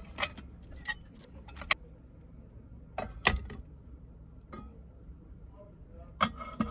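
Scattered clicks and knocks of a small electric cooking pot and its lid being handled and set in place, with the sharpest clack a little after three seconds and two more near the end.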